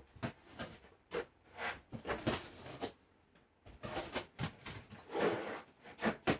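A restless dog moving about, with paws pattering, mixed with irregular scrapes and knocks; the fullest, longest sound comes about five seconds in.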